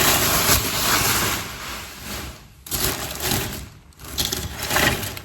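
Packaging rustling and crinkling as kitchenware is handled and unwrapped: a long stretch of crackly noise, then two shorter bursts.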